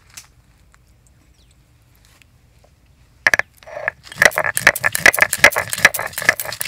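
Stone roller crushing and grinding whole black peppercorns and chillies on a flat stone grinding slab (sil-nora). Quiet at first, then about three seconds in a few sharp cracks, followed by fast rhythmic knocks and scrapes of stone on stone, several a second, with a steady faint ringing running through them.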